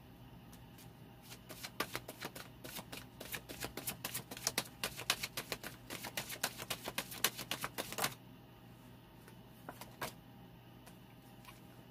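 A deck of tarot cards being shuffled by hand: a rapid, irregular run of light clicking card-on-card slaps for about seven seconds, then a couple of single taps near the end.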